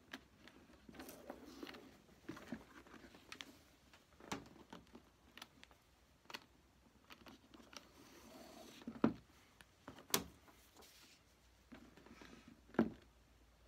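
Bootlaces being threaded by hand through the metal eyelets of a leather boot: soft lace-and-leather rustling with scattered light clicks and taps, and a few sharper clicks in the second half.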